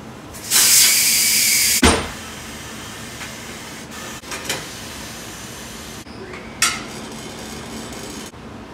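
Compressed air hissing from a pneumatic tire changer as a tire is mounted on a wheel: one loud hiss of just over a second that ends in a sharp clunk, then a few lighter clicks and a short hiss with a click later on.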